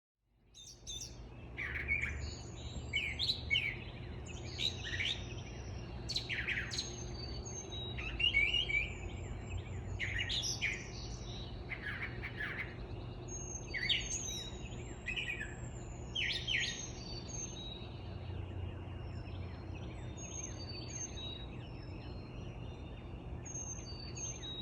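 Wild birds singing and chirping in a morning chorus: short high chirps and whistled phrases every second or so, over a steady low background hum.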